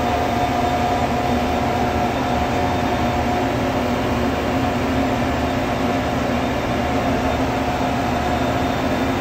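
Steady engine-room machinery noise: a continuous din with a few held hum tones and no beat or knocks, unchanging throughout.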